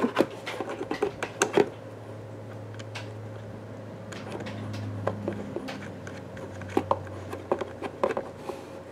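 Scattered small clicks, taps and rubbing as a spacer is screwed onto the last bolt of a cardboard-and-plastic craft-kit base, with a faint low hum underneath.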